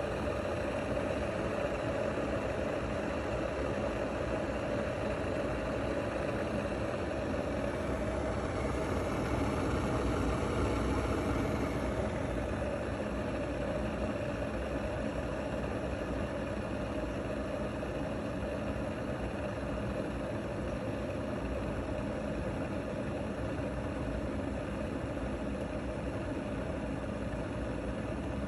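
Mueller Ultra glass electric kettle heating water: a steady rumbling hiss that swells slightly partway through.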